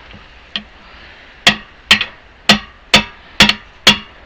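Hammer blows on steel tire tools, about two a second with a ringing tail, after one lighter knock, working the tire bead off a heavy-equipment wheel rim.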